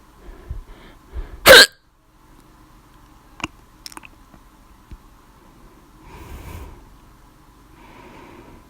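A person's single loud hiccup about one and a half seconds in, part of a bout of hiccups brought on by laughing. Short softer breaths come before it, then two faint clicks and two soft breathy sounds later.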